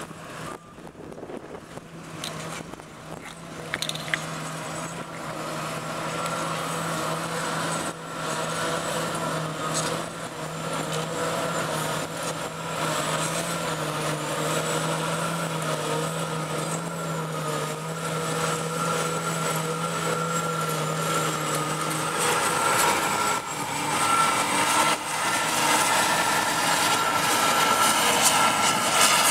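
New Holland FX58 self-propelled forage harvester working, picking up and chopping grass silage, with the tractor pulling the trailer alongside: a continuous machine drone with a thin high whine over it, getting louder as the machines come closer.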